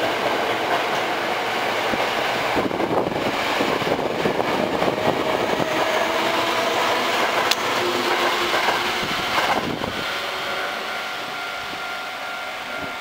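Hankyu 8000 series electric train pulling out of the station, its cars passing close with wheel and running noise and the whining tones of its Toshiba VVVF inverter. The sound begins to fade after about ten seconds as the train draws away.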